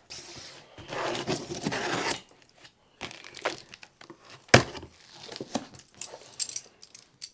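Cardboard packaging being opened by hand: tearing and crinkling with scattered handling clicks, a longer tearing or scraping stretch about a second in, and one sharp knock about four and a half seconds in.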